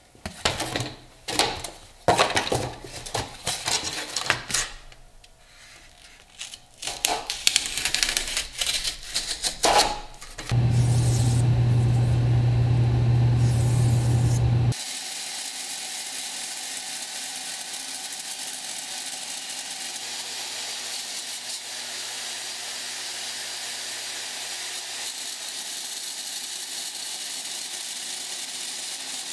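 Cardboard being handled and cut with a utility knife for a template: a run of sharp, irregular rustles and snicks. Then a loud steady hum for about four seconds that cuts off suddenly, followed by a quieter steady hiss.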